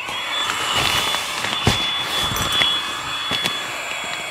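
Small battery-powered air pump running at a sleeping mat's valve, a steady high whine over a rush of air as it inflates the mat. It switches on right at the start, with a few light clicks of handling.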